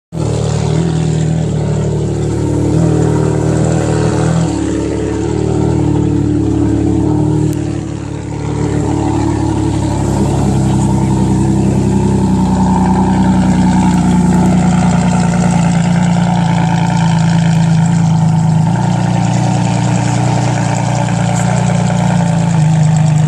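Ferrari engine and exhaust note running. The pitch moves up and down in steps for the first several seconds, eases off briefly, then holds a steady, higher note.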